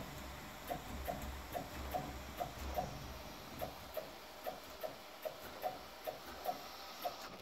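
RK3D tool-changer 3D printer printing, with a regular ticking of about two to three ticks a second from its moving print head. A low motor hum runs under the ticks for the first three seconds, then falls away.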